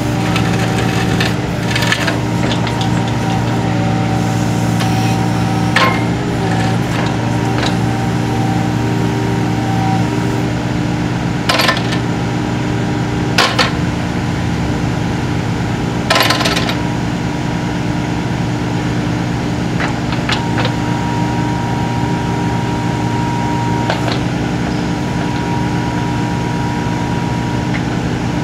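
New Holland E26 mini excavator's diesel engine running steadily under hydraulic load as the boom, arm and bucket are worked, with a hydraulic whine that comes and goes. Several sharp metal clunks come from the digging linkage, the loudest three in the middle of the stretch.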